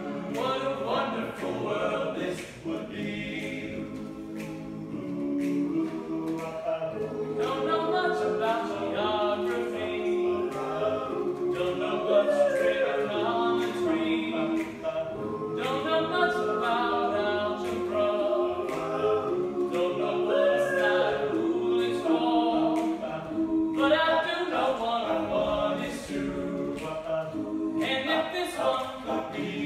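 All-male a cappella group singing, with a solo voice carried over the group's close vocal harmonies and no instruments.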